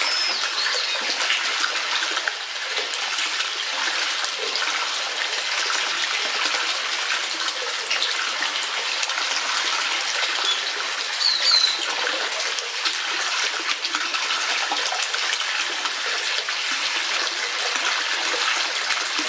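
Steady rush of flowing water, with a bird chirping briefly a couple of times.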